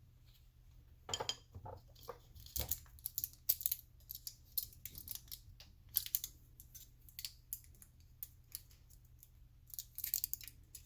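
Small plastic parts of an opened Polar T31 heart rate transmitter being handled: irregular light clicks and taps, with a thicker cluster about a second in and another near the end.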